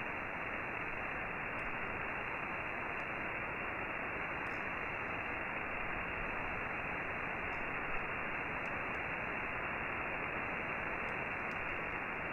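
Steady receiver hiss from an SDRplay RSP2pro software-defined radio in upper-sideband mode, tuned to a longwave frequency where no station is heard. The hiss is cut off sharply in the treble by the narrow sideband filter.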